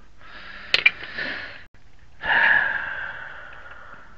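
A man's heavy, breathy exhale that fades away over about two seconds, preceded a little under a second in by two quick sharp metal clinks of tools.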